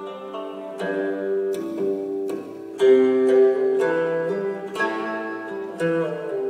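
Music with a melody of plucked string notes over held chords, a new note or chord striking about once a second.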